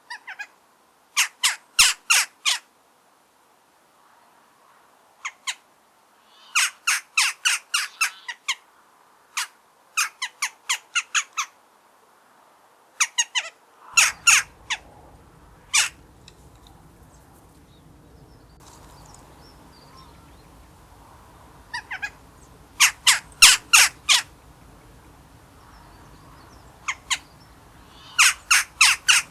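Eurasian jackdaws calling: short, sharp calls in quick runs of several at a time, with pauses between the runs. A low background hum comes in about halfway through.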